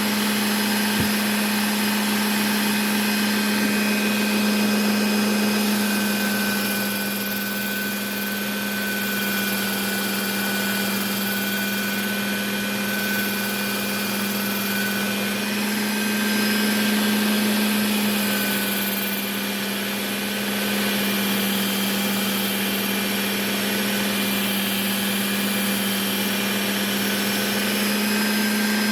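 Work Sharp Ken Onion Edition belt sharpener running steadily with a constant motor hum and belt whir, as small whittling knife blades are sharpened on its coarse Trizact belt. The level swells a little now and then.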